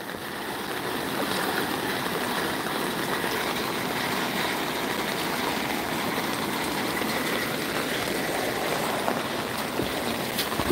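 Steady rush of water from a street under floodwater.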